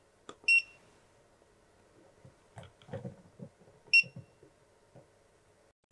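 PAN Allrounder 200AD voltage tester giving short, high electronic beeps. The first comes about half a second in, just after a faint button click, as the meter is stepped into resistance measurement. The second comes about four seconds in as the test probes go onto the terminal. Soft handling knocks from the probes fall between the beeps.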